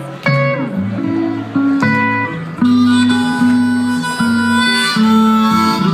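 Live blues instrumental break: a harmonica playing long held notes that step from pitch to pitch over guitar accompaniment.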